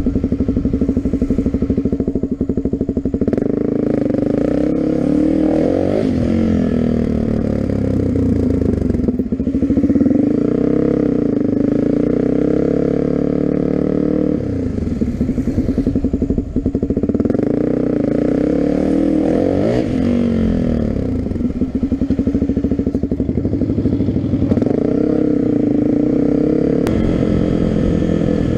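Suzuki dual-sport motorcycle engine running under way, its pitch rising as it accelerates and falling as it shifts or slows, several times over.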